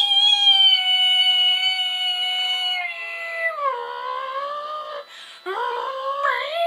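A woman vocally imitating a strange noise: a long, high-pitched held note that slides down about three seconds in, then breaks into lower, wavering wails, rising again near the end.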